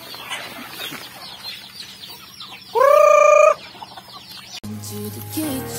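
A flock of native chickens clucking as they feed, with one loud call about three seconds in, held at a steady pitch for under a second. Near the end the sound cuts off abruptly and music starts.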